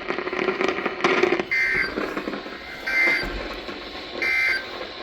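Emergency Alert System end-of-message data bursts over the radio: three short, shrill, warbling digital chirps about 1.4 seconds apart, marking the end of the alert.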